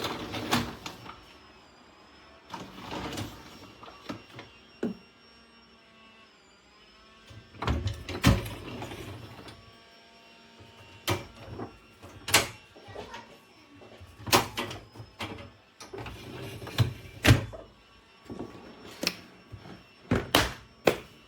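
Dishwasher racks and door being handled: baskets sliding on their rails, with about a dozen irregular sharp knocks and clacks.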